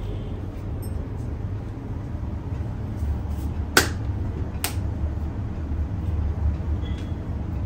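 Two sharp joint cracks during a massage, about a second apart, the first louder, over a steady low rumble.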